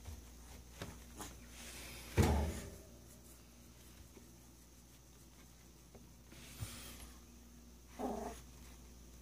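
Olde English Bulldogge puppies playing together: scuffling and short sounds from the pups, the loudest a brief one about two seconds in and another short pitched one near the end.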